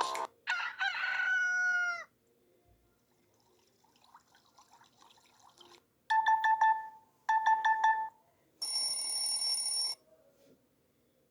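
Preset notification sounds of a Multilaser E Android phone, played one after another: a short call with gliding pitch about half a second in, two identical bursts of rapid beeps around six and seven seconds in, and a brighter, higher chime near the end.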